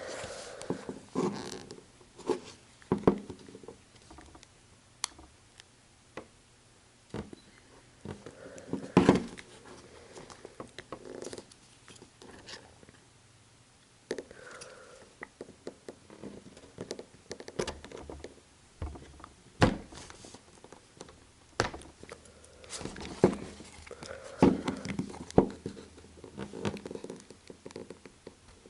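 Irregular small clicks, taps and scrapes of a hand tool and plastic pry tool working against an iPhone 5's screen and metal case while trying to pry the display open, with several sharper knocks among them.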